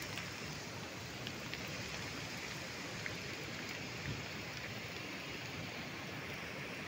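Steady rain falling on forest and wet ground, a continuous even hiss with a few faint drop ticks scattered through it.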